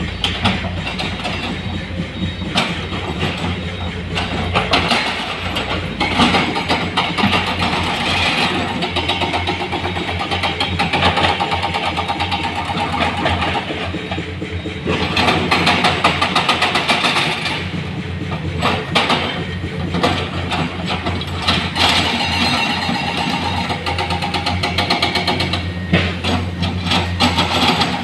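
Heavy diesel engine of an excavator loading stone into a dump truck, running steadily, with frequent knocks and clatter over it that swell at times.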